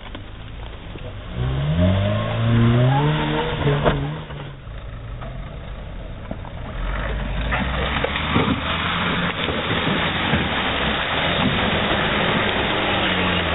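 Suzuki Jimny 4x4 engine revving up, its pitch rising over a couple of seconds. From about seven seconds in a Jimny drives close by on rough off-road ground, its engine running steadily under a rushing noise.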